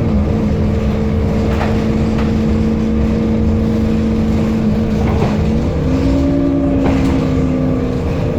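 Temsa Avenue LF city bus running, its DAF engine and ZF Ecolife six-speed automatic gearbox giving a steady rumble with a clear whining tone that steps up in pitch about six seconds in. A few short knocks or rattles come through.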